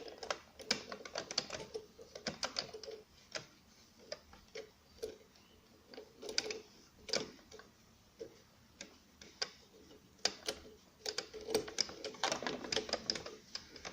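Irregular small clicks, taps and rustles from hands fitting bias binding tape into a bias binding presser foot and handling the fabric at a sewing machine. There is no steady stitching rhythm.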